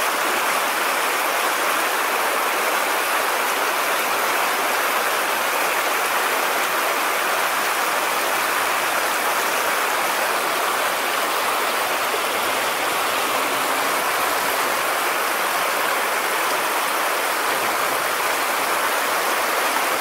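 Stream water rushing steadily over a shallow riffle, an even hiss with no breaks.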